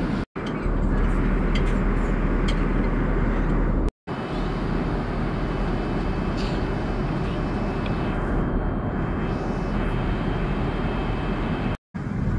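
Steady cabin noise of a jet airliner in flight, a constant rush of engine and airflow noise, cut off three times for an instant at edits between shots.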